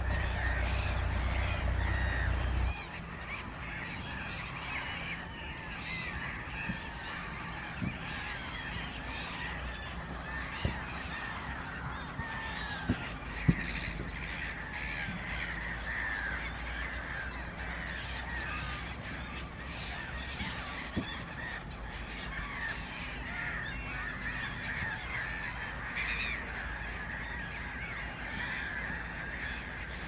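A flock of waterbirds calling continuously, many overlapping calls at once. A low rumble stops abruptly about three seconds in, and a few sharp clicks stand out, the loudest about halfway through.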